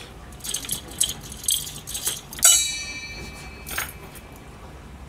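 Kitchen knife knocking on a plastic cutting board in a few quick taps. About two and a half seconds in comes one louder metallic clatter whose blade rings on briefly, then a single further knock.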